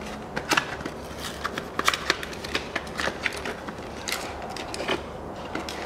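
Cardboard packaging of a new spin-on oil filter being handled and opened: scattered small clicks and crackles over a faint low steady hum.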